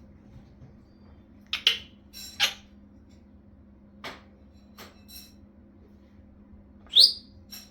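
African grey parrot making a few short, sharp clicks and squawks, then a loud rising whistle about seven seconds in.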